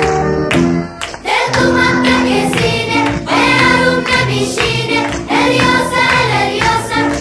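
Background song laid over the video: a short instrumental passage, a brief drop about a second in, then singing voices over steady accompaniment.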